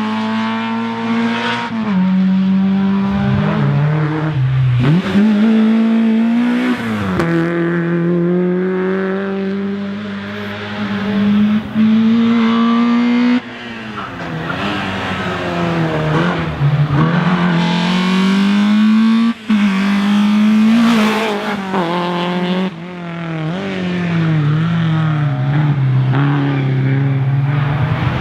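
Racing car engines run hard, the pitch climbing through the revs and dropping sharply at gear changes and throttle lifts, over and over. The sound breaks off abruptly a few times.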